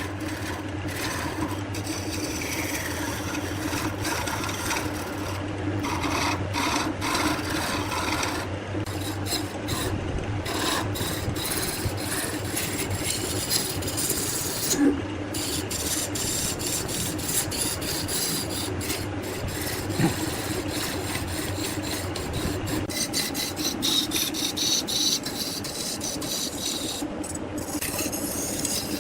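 Wood lathe running, with a continuous rasping, rubbing sound of a tool held against the spinning wood and a steady motor hum underneath. A couple of brief sharp knocks stand out partway through.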